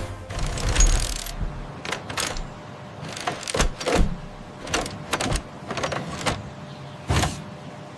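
Cartoon mechanical sound effects of a robot rescue vehicle being fitted with snow chains and a grapple. There is a whooshing whir near the start, then a run of sharp clanks and short whirring clicks spread through the rest.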